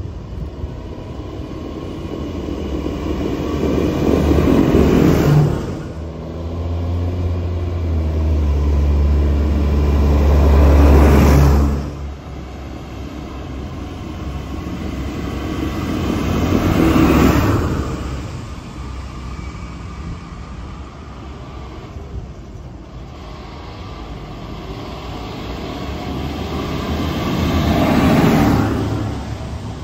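Diesel farm tractors driving past one after another. Each engine grows louder as it approaches and fades as it goes by, four passes in all. The second pass has a deep steady engine drone, and the last is a green John Deere.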